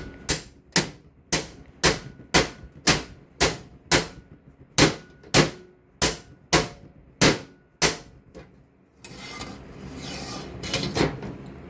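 Hammer blows on a metal strip laid over the edge of a steel welding table, bending it down: about two ringing strikes a second for some eight seconds, the last few lighter. Then the blows stop, followed by a few seconds of scraping and rustling.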